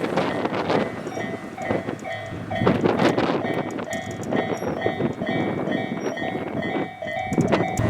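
Japanese railway level crossing's electronic warning bell ringing in a steady repeating pattern, over the rumble and wheel clatter of a Hachikō Line diesel railcar passing through the crossing.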